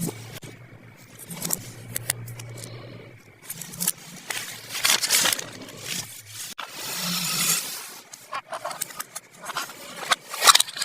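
Small plastic toy pieces and packaging being handled: scattered light clicks and taps, with two longer rustling scrapes in the middle.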